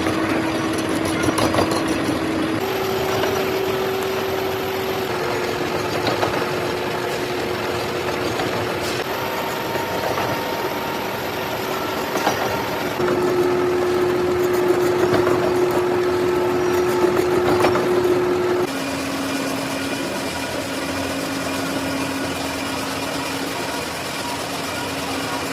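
Metal-cutting machine tool running under load, its motor giving a steady hum with scraping and clicking from the cut. The hum's pitch and loudness change abruptly at several points, the loudest stretch in the middle.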